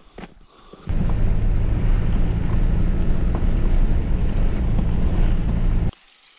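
Flatbed ute driving along a dirt track: a loud, steady rumble of engine and road noise. It starts abruptly about a second in and cuts off about half a second before the end.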